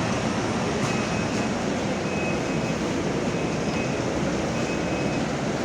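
Steady vehicle noise: an even rumble and rush with no change in level.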